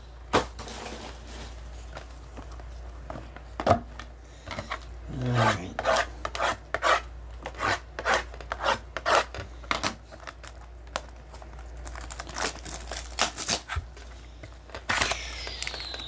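Sealed cardboard trading-card boxes being cut open with a blade by gloved hands: a run of short rasping cuts and scrapes, with light taps of cardboard on a tabletop.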